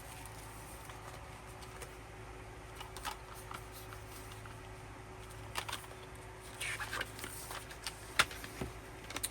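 Quiet handling of K-pop album contents: a few short rustles and light clicks of paper and plastic as the items are taken out, over a faint steady room hum.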